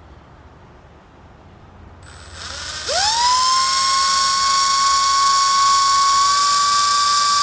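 Milwaukee 2602 M18 cordless hammer drill spinning up just under three seconds in and then running free at a steady speed with a high-pitched whine.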